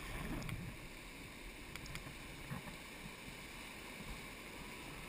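Steady rushing of the Colorado River around a drifting raft, with the rapid downstream, and a few faint taps.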